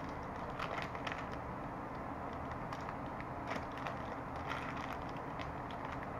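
Plastic wrapper of a Mr. Big chocolate bar crinkling in short, scattered crackles as it is torn and peeled open by hand, over steady background noise.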